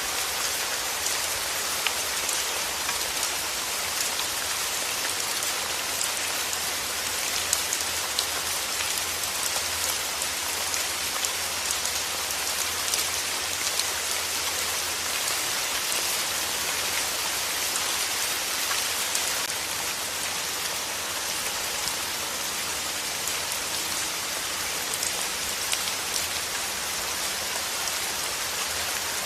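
Steady rain falling on a surface: an even hiss with many small drop ticks scattered through it.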